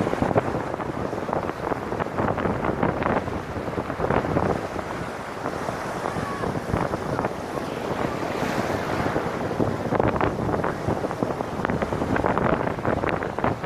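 Ocean surf breaking and washing over rocks and sand, with wind buffeting the microphone.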